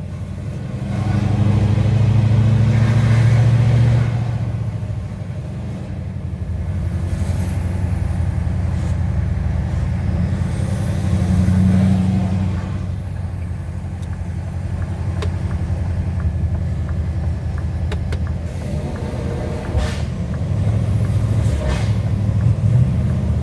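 Scania R730's 16-litre V8 diesel engine running under way, its low drone swelling and easing several times as it pulls and backs off. A few brief sharp noises come in the second half.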